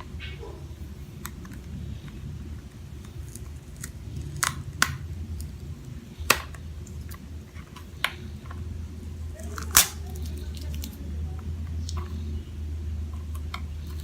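Hands handling a small toy and its packaging: a handful of sharp clicks and taps, the loudest about two-thirds through, over a steady low hum.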